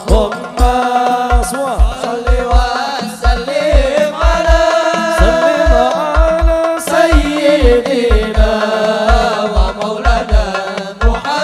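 Hadroh sholawat music: a melodic lead of long, wavering notes that glide between pitches over steady low bass-drum hits about two a second.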